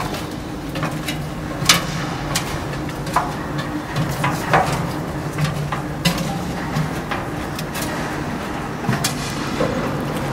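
Footsteps and clanks on a metal scaffold staircase: irregular sharp metallic knocks, roughly one a second, over a steady low hum.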